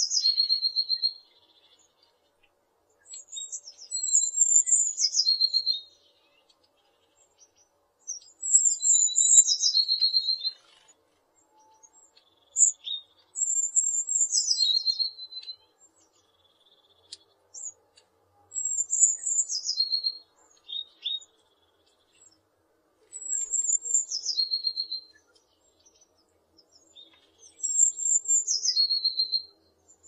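Eurasian blue tit singing: about six song phrases, each a high fast trill that steps down to a lower trill, with short pauses between them.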